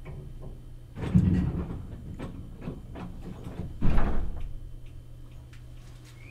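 Inside a Meitetsu 1000 series train: two loud rattling clatters, about a second in and again about four seconds in, with lighter clicks between, over the car's steady low hum.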